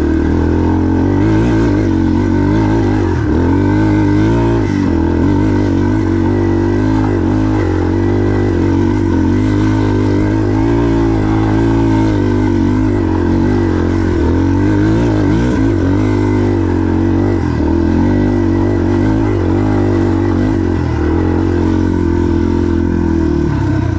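Dirt bike's single-cylinder four-stroke engine running under load up a hill climb, its pitch wavering slightly as the throttle works.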